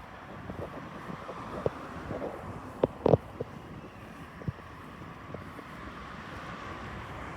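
Outdoor background noise: a steady rush, with a few short clicks and knocks about two to four seconds in.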